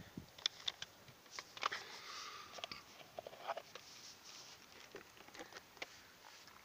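Handling noise: scattered light clicks and rustling at irregular intervals.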